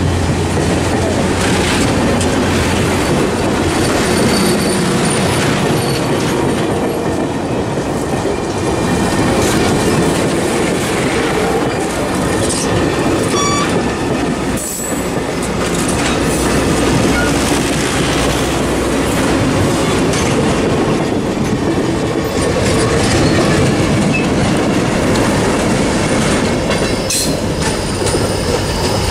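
Passenger cars of a Cuyahoga Valley Scenic Railroad train rolling past close by: a steady, loud rumble of steel wheels on rail, with a few sharp clicks.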